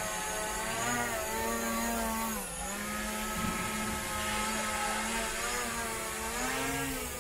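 Quadcopter drone's propellers and motors whining as it hovers overhead, a buzzing hum whose pitch wavers up and down as the motors adjust speed. The pitch dips most about two and a half seconds in.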